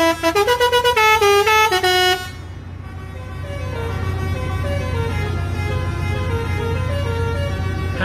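Lorry 'telolet' (basuri) musical horn playing a quick tune of stepped notes, which stops about two seconds in. A fainter horn tune of stepped notes follows and slowly grows louder over a steady low hum.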